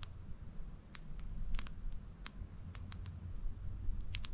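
Wood campfire crackling, with sharp single pops scattered about every half second to second, over a low steady rumble.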